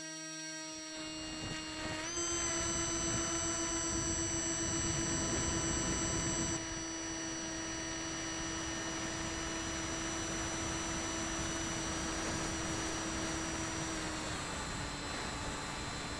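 Bixler 3 RC plane's electric motor and propeller whining at a steady pitch, with rushing air, as heard by the camera on board. The whine rises in pitch and gets louder about two seconds in as the motor speeds up, then drops slightly in pitch near the end.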